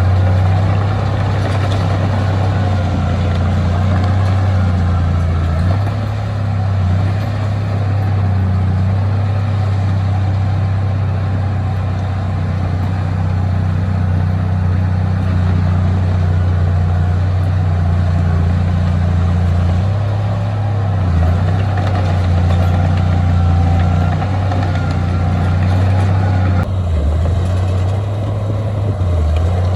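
Heavy diesel engine of earth-moving machinery running steadily with a deep drone that dips briefly a few times.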